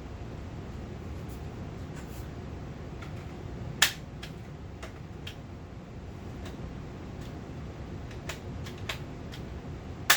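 Metallic clicks and clacks of a rifle being handled while a jam is cleared and the modified magazine is worked: two sharp snaps, about four seconds in and right at the end, with lighter clicks between, over a steady low hum.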